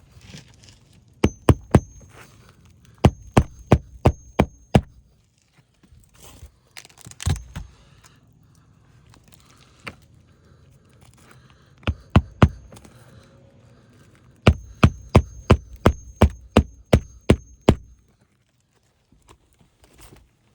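Hammer driving roofing nails into asphalt shingles. The blows come in quick runs with a faint metallic ring: about three, then about six, a single blow, three more, and near the end a run of about a dozen.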